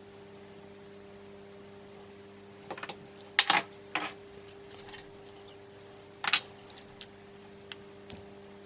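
Small metal engine parts and hand tools clinking and knocking on a workbench: a few sharp clicks, loudest about a third of the way in and again past the middle. A steady low hum runs underneath.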